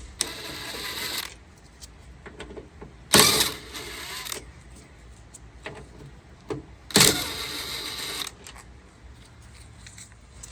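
A tool backing out three T30 Torx screws from a car door, in three short mechanical bursts about three seconds apart, each starting sharply and lasting about a second.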